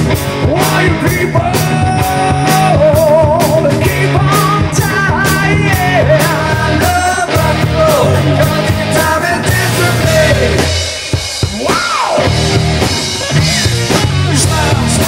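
Live rock band playing loud: drum kit keeping a steady beat under electric guitars and bass, with a lead melody of held, wavering notes and a bend that rises and falls near the end.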